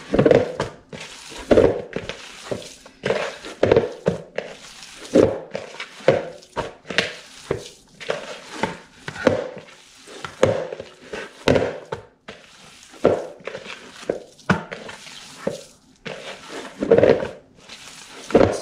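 Bare hands kneading and squeezing raw ground-beef meatball mix, with egg and breadcrumbs, in a plastic mixing bowl. It makes wet squishing strokes about once or twice a second.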